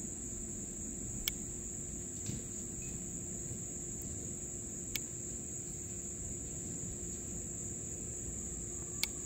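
Steady high-pitched insect chirring, such as crickets make, over a low outdoor hum. Three short sharp clicks stand out: one about a second in, one about five seconds in, and one near the end.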